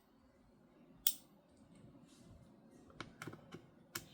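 Faint scattered clicks and taps of a precision screwdriver and small screws being worked on an opened laptop, with one sharper click about a second in and a cluster of light clicks near the end.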